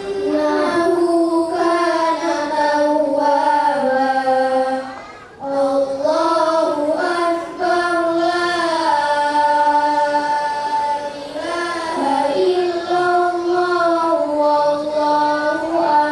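A girl's voice reciting in a melodic, sung style into a microphone, with long held notes that glide between pitches and a few short breaks for breath; typical of Qur'an recitation (tilawah).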